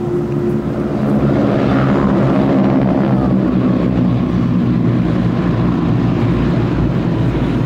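A formation of single-engine piston-propeller warbirds flying low overhead, their engines making a heavy, steady drone. The drone swells about a second in as the formation comes over.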